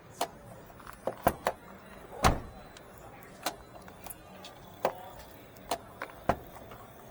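A series of about ten sharp clicks and knocks at irregular intervals, with a heavier knock about two seconds in.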